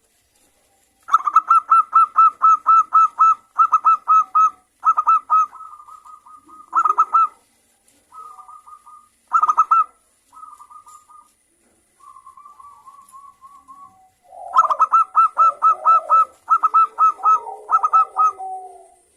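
Zebra dove (perkutut) cooing in quick runs of rapidly repeated notes. The phrases are separated by short gaps, with quieter, softer runs in the middle. A loud run comes again near the end, with lower notes beneath it.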